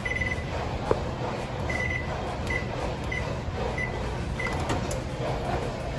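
Frigidaire Gallery over-the-range microwave's keypad beeping as its buttons are pressed: about six short high beeps spread over five seconds, with a sharp click about a second in.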